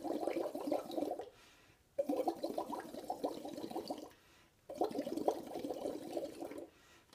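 Breath blown through a pipette into red cabbage juice in a glass Erlenmeyer flask, bubbling through the liquid in three bursts of one to two seconds each, with short breaks between breaths. The exhaled carbon dioxide is turning the cabbage indicator lighter.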